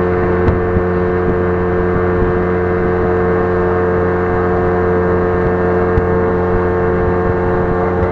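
Vehicle engine running steadily, a constant drone at an even pitch, with a few light knocks.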